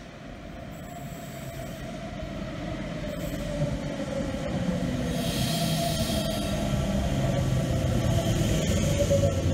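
NSW TrainLink V set double-deck intercity electric train pulling into a station platform, growing steadily louder as it comes closer. A steady whine sinks slightly in pitch, and a brief high wheel squeal comes about five seconds in.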